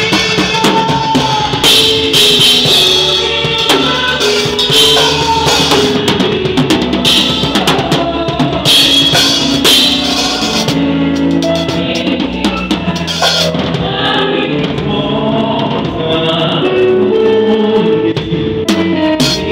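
Drum kit played in full groove with a band: bass drum, snare and toms under repeated cymbal crashes, over pitched band instruments.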